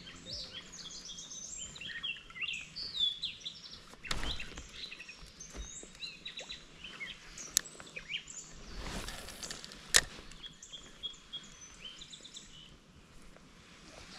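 Songbirds chirping and singing steadily, with a few sharp clicks and a soft swish from casting and working a spinning rod and reel.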